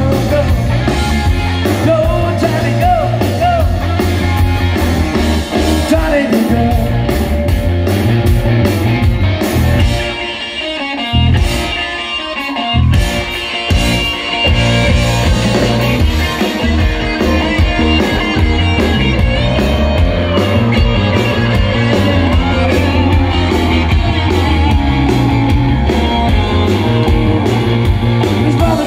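Live rock band playing loud amplified electric guitar and drums, with a steady beat; the band drops back briefly about ten seconds in, then comes back in full.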